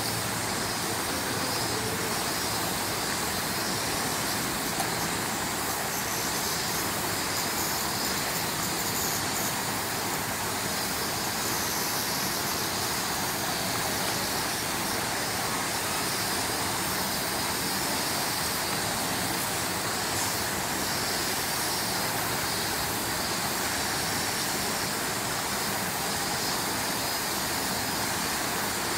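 Steady outdoor background noise, an even hiss with no distinct events apart from one small tick about five seconds in.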